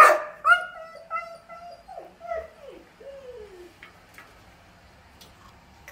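A dog crying in a run of pitched whines and howls, starting with a loud sharp cry and ending with a few falling cries, then stopping about four seconds in. She is distressed at being shut inside away from her owners.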